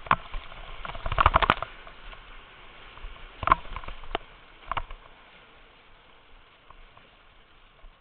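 Water splashing against a whitewater kayak and its paddle, a quick cluster of splashes about a second in and a few more single splashes a few seconds later, over the steady rush of the rapids, which settles quieter near the end.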